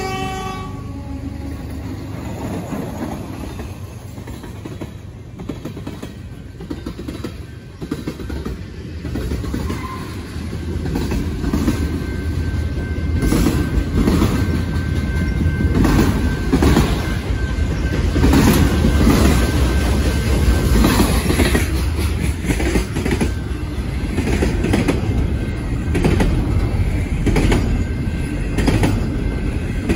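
Freight train passing at close range: steel wheels clack repeatedly over rail joints under a steady rumble, which grows louder about twelve seconds in. The tail of the locomotive horn dies away in the first second.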